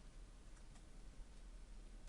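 Near silence: faint room tone with two or three soft clicks a little over half a second in, typical of a computer mouse being clicked.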